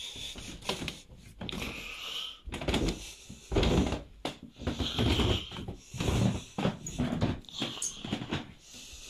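Footsteps going down carpeted stairs: a run of irregular dull thumps, mixed with rustling handling noise close to the microphone.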